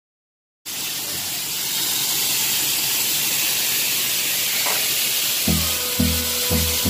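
A loud steady hiss cuts in just after the start. About five and a half seconds in, a deep beat joins it, about two thumps a second, over a held tone: the opening of a background music track.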